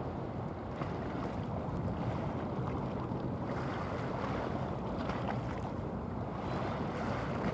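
Steady low rumble and water wash of a passing bulk carrier, its propeller churning at the stern, with wind on the microphone.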